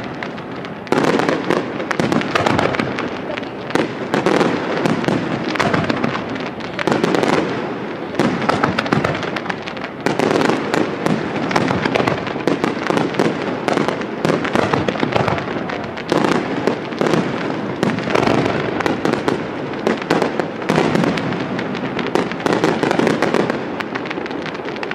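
Aerial firework shells bursting in a dense, continuous barrage: rapid, overlapping bangs and pops with no let-up.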